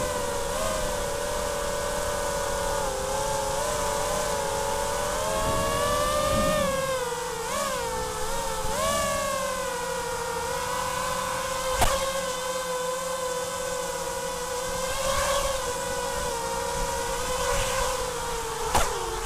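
Brushless motors and propellers of an Armattan F1-5 FPV racing quadcopter on Emax 2205 2300 kV motors, heard from the onboard camera: a steady whine that swoops up and down with the throttle a few times. A sharp knock comes about twelve seconds in and another near the end.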